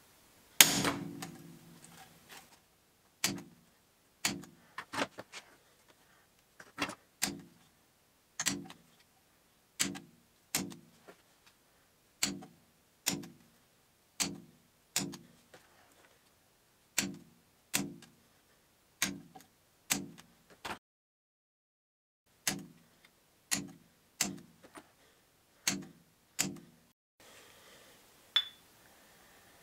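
Hammer striking a steel hole punch through cork gasket material backed by the end grain of a wooden block: a series of sharp knocks, roughly one a second, each with a short ring, the first one the loudest. The blows pause briefly after about 20 seconds, then resume, and give way to quieter handling near the end.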